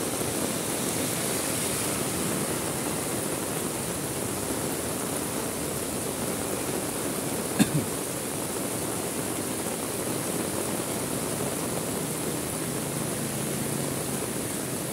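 Heavy rain falling steadily, a dense even hiss, with a short sharp double knock about halfway through.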